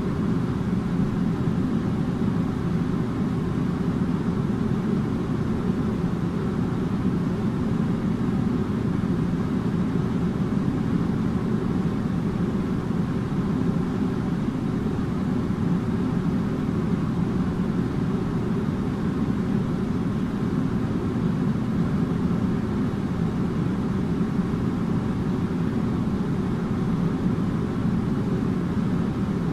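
Air conditioner running steadily: an even low hum and rush of air that does not change.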